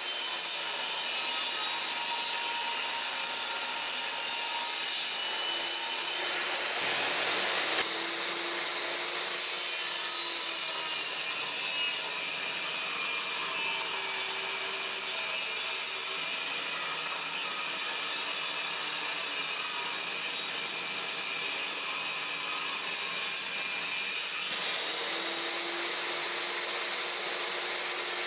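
Craftsman table saw running steadily and cutting wooden boards. Its hum sags each time the blade takes the wood and then recovers, several times over.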